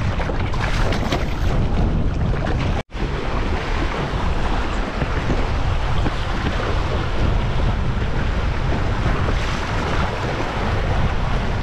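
Strong wind buffeting the microphone over choppy river water slapping and splashing, a steady rushing noise heaviest in the low end. The sound cuts out for an instant about three seconds in.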